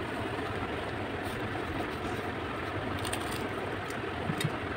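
A steady background hum, with a few faint mouth clicks of chewing near the end.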